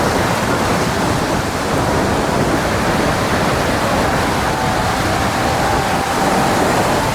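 Steady, loud roar of ocean surf breaking on a beach.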